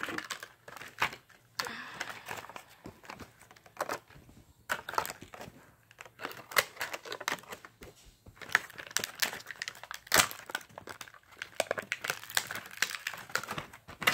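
Clear plastic packaging crinkling and crackling as it is handled, in irregular crackles with one louder crackle about ten seconds in.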